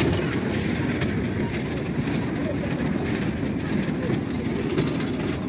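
Children's mini amusement train rolling round its circular steel track: a steady low rumble of its wheels on the rails, heard from aboard.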